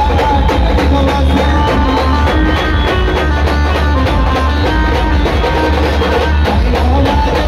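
Loud live band music played through a truck-mounted PA speaker stack: a Khandeshi pavri tune carried by a melody line over a steady drum beat and heavy bass.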